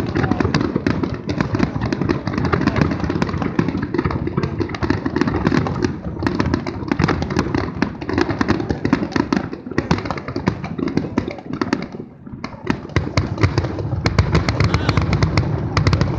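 Fireworks going off in a continuous dense crackle of rapid pops, easing briefly about twelve seconds in.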